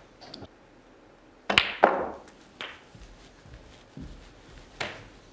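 Snooker balls clicking as a shot is played: about half a dozen sharp clicks of cue tip on cue ball and ball on ball, the loudest about two seconds in.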